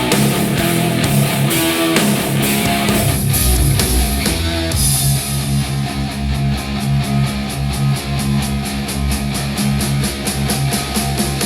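Heavy rock music with electric guitar, played back through a compact powered computer speaker for a sound demo. About five seconds in the highs thin out and a quick, even pulse of short strokes runs on under the guitar and bass.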